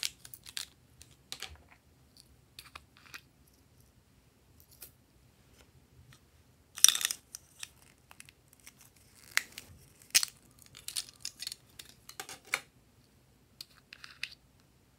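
Small plastic toy containers handled and opened by hand: scattered clicks, taps and crinkly rustles, with a louder crackling rustle about seven seconds in and a sharp click around ten seconds.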